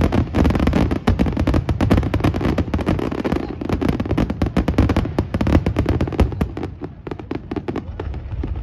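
Fireworks display: a dense, continuous barrage of rapid bangs and crackling, thinning a little near the end.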